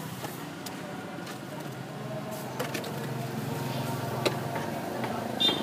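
A motor vehicle engine running steadily at low speed, a low pulsing hum, with a few light clicks and knocks scattered through it and a short high squeak near the end.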